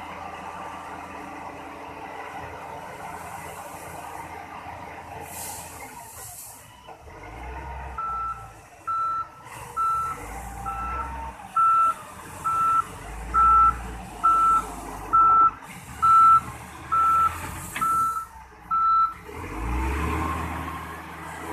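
SDLG wheel loader's diesel engine running and revving at times, with its reversing alarm beeping about a dozen times, just under a second apart, from about eight seconds in until shortly before the end.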